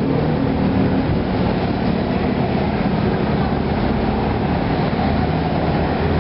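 A motor vehicle's engine running steadily nearby: a low, even hum under a constant hiss.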